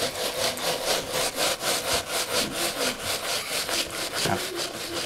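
A magnet being worked down into a jar of iron filings, scraping and grinding in quick strokes of about five a second.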